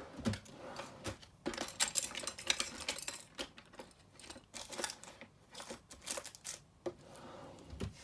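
Hard craft tools and supplies clattering and rattling as they are rummaged through, with sharp clicks and knocks in several bouts, busiest in the second and third seconds.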